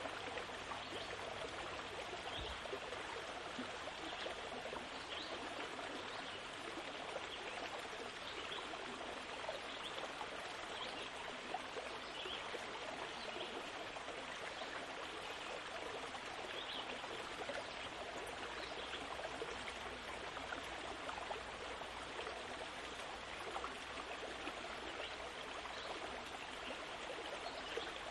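A steady rushing, trickling noise like running water, with many small faint ticks.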